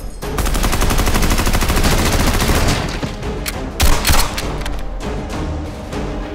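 Rapid burst of gunfire lasting about two seconds, then two louder single shots about four seconds in, over background music.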